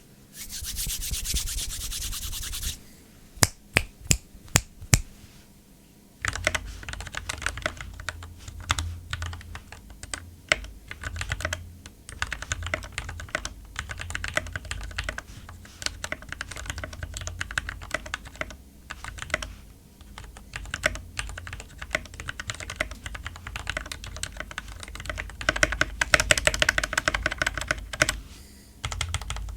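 Typing test on a GK61 60% mechanical keyboard fitted with lubed Gateron Yellow linear switches and ABS keycaps. After a few seconds of steady hiss, about half a dozen single keystrokes sound, then fast continuous typing from about six seconds in.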